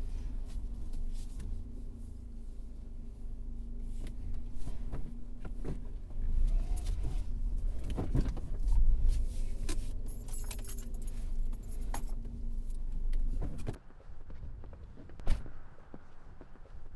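Car engine idling, heard from inside the cabin, with clicks and a jingle of keys around ten seconds in. The engine hum cuts off abruptly near the fourteen-second mark, giving way to quieter street sound and a single sharp thump.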